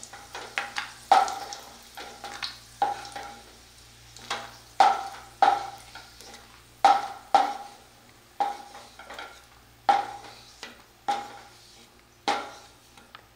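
Wooden spatula scraping and knocking against a nonstick kadai of hot ghee, about two knocks a second at uneven intervals, each leaving a brief ring from the pan.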